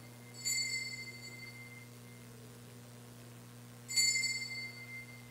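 Altar bell struck twice, about half a second in and again near four seconds, each a clear ringing tone that fades over about a second: the consecration bell rung at the elevation of the chalice.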